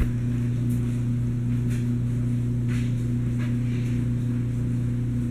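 A steady low hum, with a few faint, brief rustles of plastic page protectors as a photo album is handled.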